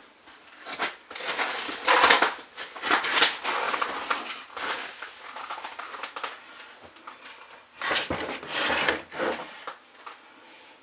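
Pliers and chainsaw parts being worked by hand: irregular scraping, rustling and small metallic and plastic clinks, loudest about two seconds in and again near the end, as the fuel filter is fished out of the chainsaw's tank.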